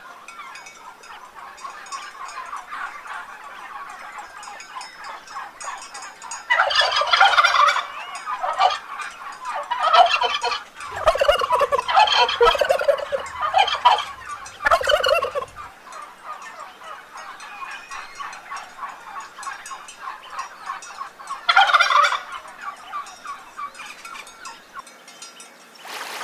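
Turkeys gobbling, with several loud bursts of gobbles through the middle and another near the end, and quieter chattering calls between them.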